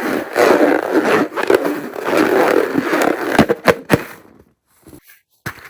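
Crunchy slime being squished and kneaded by hand, a dense crackling, scraping sound, with a few sharp snaps about three and a half seconds in before it goes quiet.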